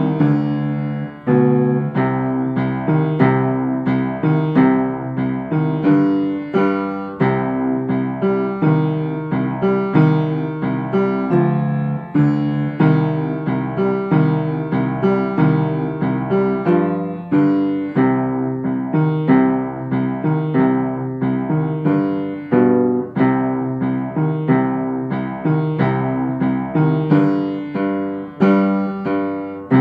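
An upright piano played continuously, a steady flow of struck notes lying mostly in the lower-middle range, with accented chords landing about once a second.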